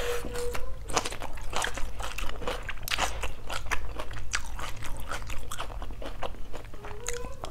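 Close-miked chewing of a mouthful of chicken salad with raw onion: a steady run of irregular crisp crunches.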